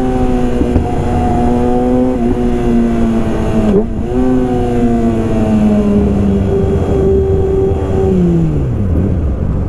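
Yamaha R6 sport bike's inline-four engine through a full Yoshimura exhaust system, running at steady high revs. The note dips briefly about four seconds in, then the revs fall steeply near the end as the throttle closes.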